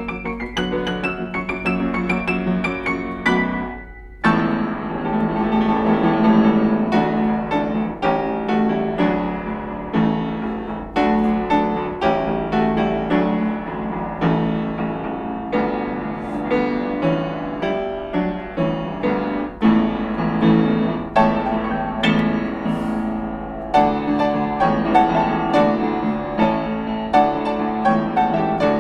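Solo piano playing a dense run of notes, with a brief break about four seconds in before it resumes at full strength.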